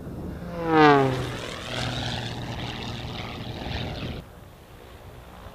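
Single-engine propeller aerobatic airplane making a fast low pass, loudest about a second in, with its engine pitch dropping steeply as it goes by. The engine then runs on more evenly and cuts off suddenly about four seconds in.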